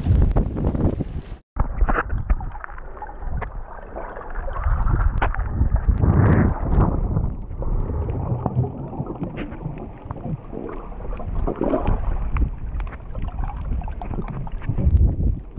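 Water splashing around a kayak at the shoreline for about a second and a half, then a sudden cut to muffled underwater water noise, churning and bubbling with scattered small clicks, as heard with the microphone submerged.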